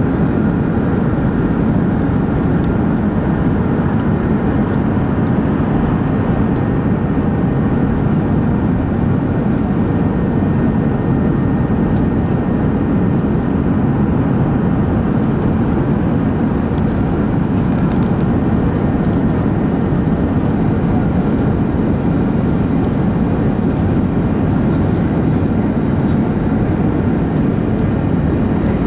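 Steady, loud cabin noise inside an Airbus airliner on final approach: an even rumble of the jet engines and airflow over the wing, unchanging throughout.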